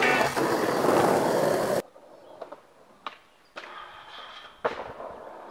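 Skateboard wheels rolling loudly on asphalt, cutting off suddenly about two seconds in. Later the board grinds down a metal stair handrail and slaps down hard on landing near the end.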